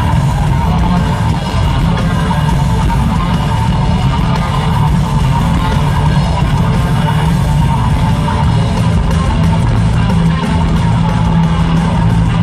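Rock band playing live: distorted electric guitar, bass and drums, loud and unbroken, heard from within an arena crowd.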